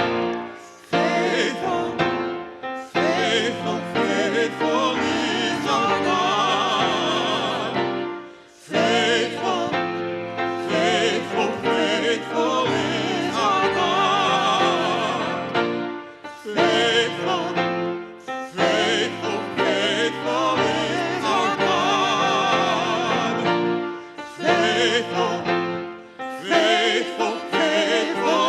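Sacred music: a classically trained voice singing with wide vibrato over held instrumental accompaniment, in long phrases with brief breaths between them.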